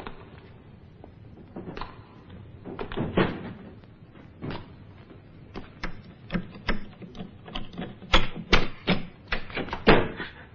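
A run of sharp clicks and knocks, spaced irregularly at first, then coming quickly at about three to four a second in the second half, loudest near the end.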